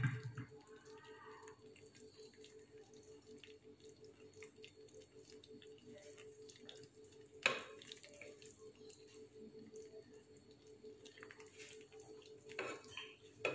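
Thick peanut butter sauce simmering in a non-stick frying pan: faint, scattered small pops and ticks of bubbles bursting over a steady low hum. There is a knock at the very start, a sharper click about seven and a half seconds in, and the silicone spatula stirring through the sauce near the end.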